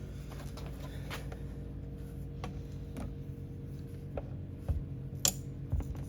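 Small flathead screwdriver prying at a thin glued laminate strip on a subwoofer enclosure: a few light, scattered clicks and taps over a steady low hum.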